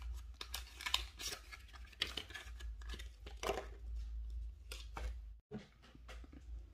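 Handling of a false-eyelash package: a string of small clicks, scrapes and rustles of cardboard and plastic close to the microphone, thinning out about five and a half seconds in.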